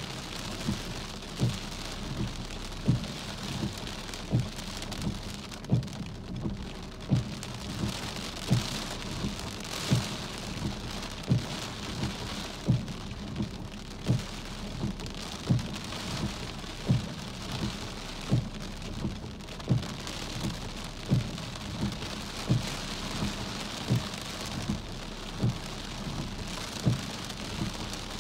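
Steady rain falling, with a low thump repeating evenly about every second and a half.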